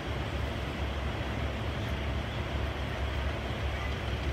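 Steady low rumble and hiss of outdoor background noise, with no train passing and no distinct event.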